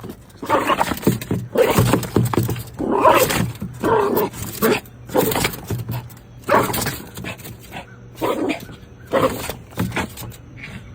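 A dog vocalising loudly in a string of short, gruff outbursts, roughly one every second or so.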